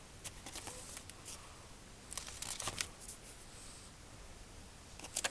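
Faint rustling and crinkling of paper with light clicks: sketchbook pages being handled and turned, in two short clusters and a brief sharper burst near the end.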